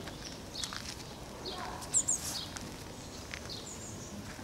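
Sparrows chirping: short, high chirps scattered through, the loudest a quick pair about two seconds in.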